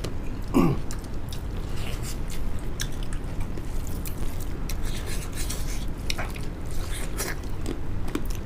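Close-up sounds of people chewing and biting boiled duck and sticky rice, with many small wet clicks scattered throughout. A brief low voice sound comes about half a second in.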